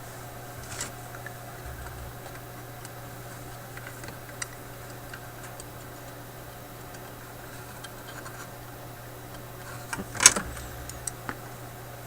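Scattered light clicks and taps of handling tools and parts on a workbench, with a louder clatter about ten seconds in, over a steady low hum.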